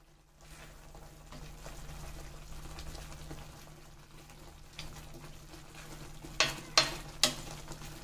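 Thick onion and ground-coconut curry simmering and sizzling in a metal pan while a plastic spoon stirs it, as the gravy comes up to the boil. Near the end the spoon knocks sharply against the pan three times.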